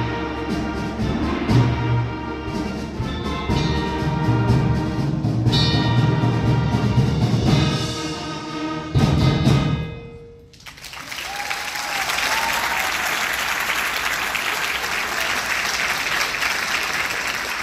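Middle school concert band, with wind and brass instruments and percussion, playing the last bars of a piece and ending on a loud accented chord about nine seconds in. As it dies away, the audience breaks into steady applause.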